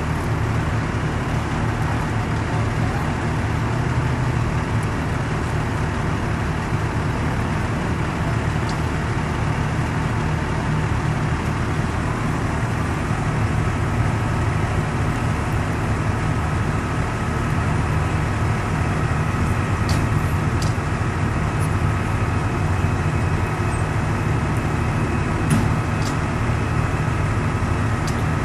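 A fire engine's diesel engine idling with a steady low rumble. A faint, steady high whine joins about halfway through, and a few light clicks come near the end.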